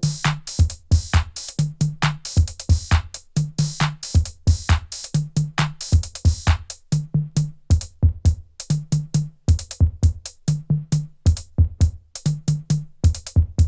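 Instrumental hip-hop beat: a drum machine playing fast, even hits over a low bass figure that repeats about every two seconds, with no vocals. It stops abruptly near the end.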